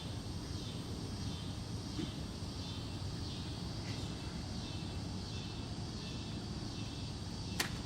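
Steady low background rumble of outdoor ambience, with one sharp click near the end.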